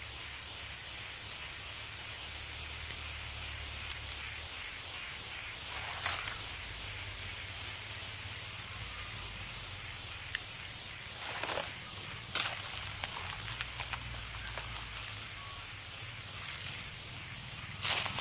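Chorus of cicadas: a steady, high-pitched buzzing drone with a fast, even pulse. A few faint brief rustles come through around the middle.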